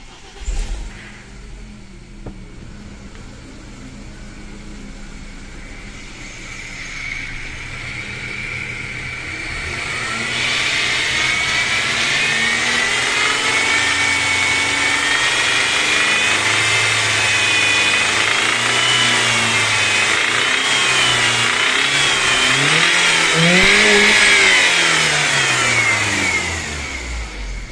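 BMW M43TU four-cylinder petrol engine being revved, climbing in pitch about a third of the way in and rising and falling again near the end, loudest around there. The owner complains of a knock that appears under revs but not at idle, which he suspects comes from the hydraulic lifters.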